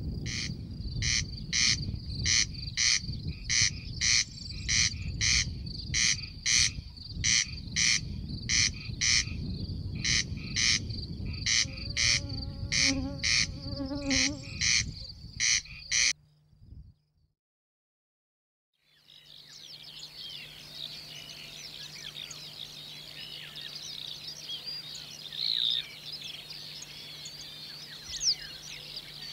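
Corncrake calling: a dry, rasping creak repeated about twice a second, over a low rumble. About two-thirds of the way through it cuts off, and after a brief silence a dense chorus of high chirps and twitters begins, with a faint steady hum beneath.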